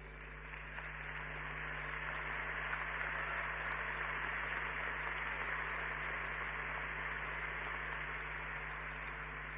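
Large audience applauding. The applause swells over the first two or three seconds, then slowly eases off until it stops near the end.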